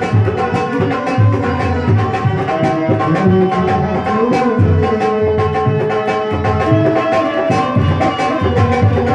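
Instrumental devotional folk music: a dholak beats a steady dance rhythm under long held melody notes, with no singing.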